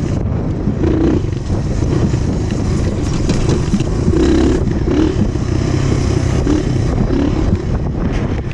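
Dirt bike engine running as the bike is ridden along a sandy trail, its pitch rising and falling with the throttle.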